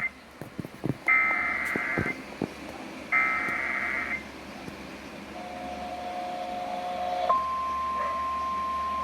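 Emergency Alert System SAME header: two one-second bursts of buzzing digital data tones, a second apart. A brief lower double tone follows, and about seven seconds in the steady single-pitch weather-radio alert tone begins and holds.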